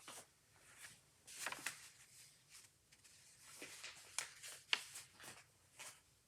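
Hands handling packaging and small fidget toys: an irregular string of short, quiet rustles and clicks.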